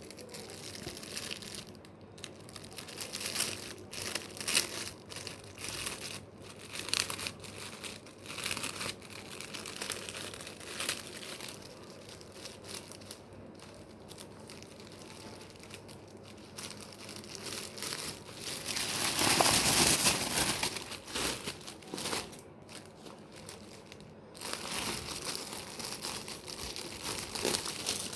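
Packaging of a newly delivered T-shirt crinkling and rustling as it is pulled open by hand, in irregular bursts, loudest for a couple of seconds a little past the middle.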